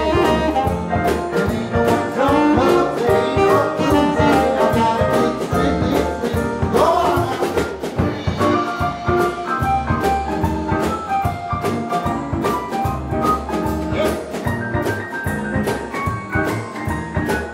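A live jump-blues swing band plays an instrumental passage with a steady swing beat: saxophone, upright bass, drums and electric guitar, with an M-Audio stage piano taking the lead in the second half.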